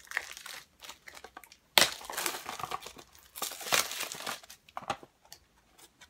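Crinkling and tearing of a Mystery Minis blind box's packaging as it is torn open by hand. The irregular crackle is loudest about two seconds in and again near four seconds.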